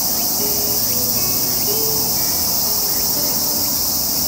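Cicadas singing: a steady, high-pitched buzzing drone that does not let up.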